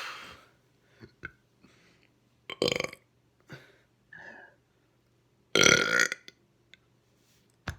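A person burping repeatedly on purpose: two loud burps, each about half a second long, at about two and a half and five and a half seconds in, with a few smaller burps between them.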